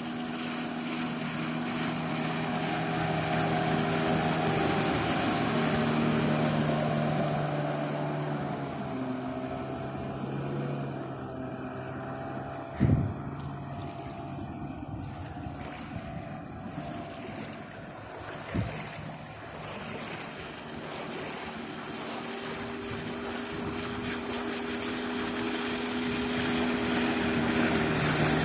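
Hidea 9.9 hp outboard motor running on a moving small boat, its pitch and loudness rising and falling with the throttle, over wind and water noise. Two sharp knocks, about a third and two thirds of the way through.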